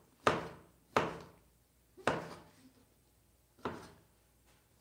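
Kitchen knife chopping on a cutting board: four separate strokes at uneven gaps of about a second or more.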